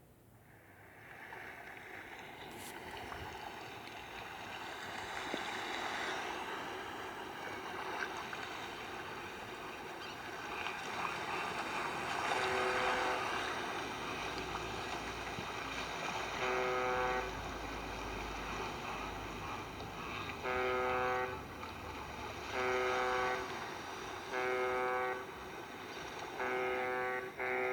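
A BlackBerry 9790 ringtone playing. It begins as a wash of sound that swells up over the first several seconds, and from about halfway through a chord of steady tones sounds in short blasts, roughly one every two seconds.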